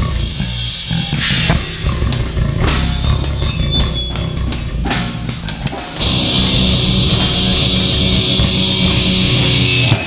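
Live heavy rock band playing loud: a drum kit and guitar, then a sustained chord held under a cymbal wash from about six seconds in.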